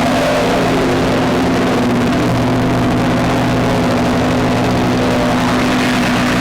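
Electronic drone-noise music from small synthesizers: sustained low tones under a dense, hissy wash of noise.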